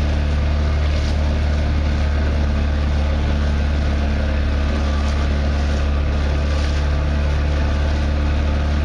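A small motor driving a kayak along at steady speed: an unchanging low hum with water rushing past the hull.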